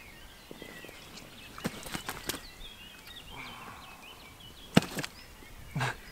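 A few sharp slaps and knocks, heaviest near the end, as a freshly landed carp is handled and lifted, with birds chirping in the background.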